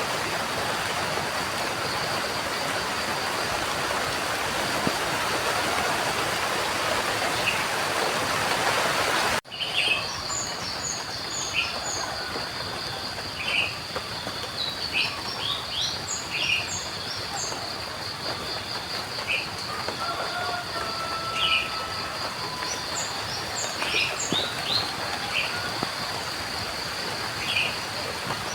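Steady rain with a few bird chirps, cut off sharply about nine seconds in. Lighter rain ambience follows, with a steady high pulsing trill and frequent short bird chirps and calls, some in quick runs of three or four notes.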